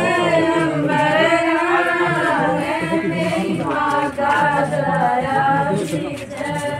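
Unaccompanied singing with long drawn-out notes that waver and bend in pitch, and no instruments.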